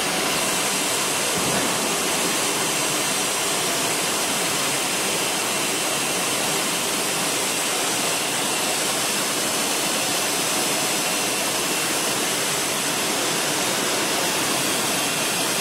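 Steady rushing machine noise with a faint high whine, unchanging throughout, typical of a CNC router and its extraction running in the shop.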